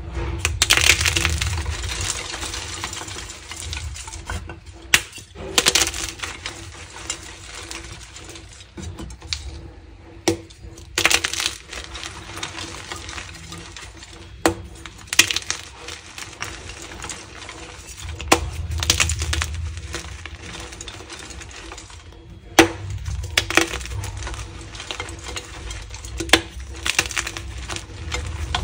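Gym chalk crushed in the hands: thin slabs of plain white chalk and a dyed chalk block crunched and crumbled to powder, with several sharp snaps as pieces break and gritty crumbling between them.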